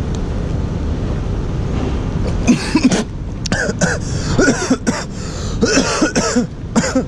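A man coughing and clearing his throat in a series of short, harsh bursts, starting about two and a half seconds in, over a steady low background rumble.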